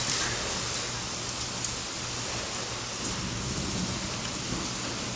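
Heavy rain pouring down onto a concrete driveway: a steady, even hiss.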